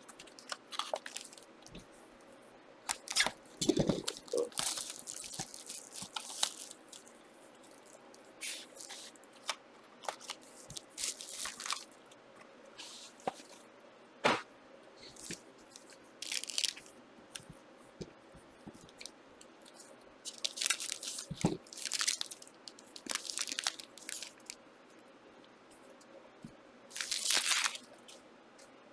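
Trading-card packs and their wrappers being torn open and crinkled, with the cards being handled: irregular short crackling rustles and a few sharp clicks.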